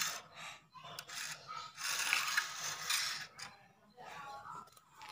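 Plastic Lego bricks clicking and rattling as a built Lego model is handled and moved, in three short bursts.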